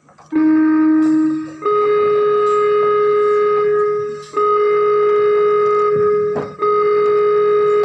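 Loud, steady held musical tones: a lower note for about a second, then a higher note sounded three times in long holds of about two seconds each, separated by short breaks.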